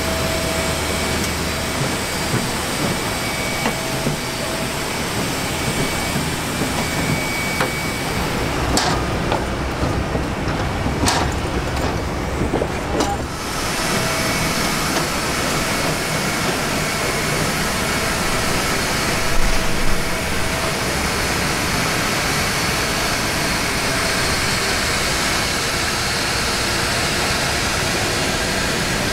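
Steady roar of aircraft and ground equipment on an airport apron, with a few faint clicks in the middle.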